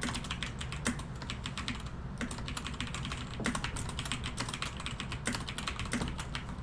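Typing on a computer keyboard: a quick, uneven run of key clicks with a short pause about two seconds in.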